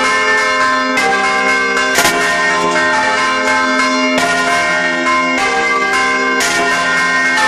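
Church bells rung by hand, heard loud and close from inside the bell chamber. Fresh strikes come about once a second, and several bells' tones hang on and overlap.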